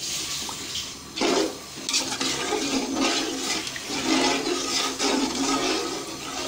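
Rice and meat stock boiling in a pot, bubbling and sloshing as a spoon stirs it, in uneven swells from about a second in.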